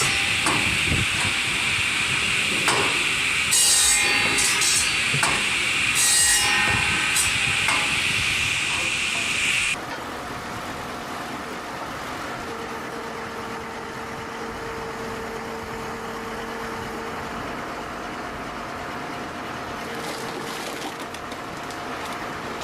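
Sawdust-making wood-processing machine grinding wood, a steady high whine over hiss with a few scratchy surges. About ten seconds in it cuts off suddenly, leaving a quieter steady machine hum.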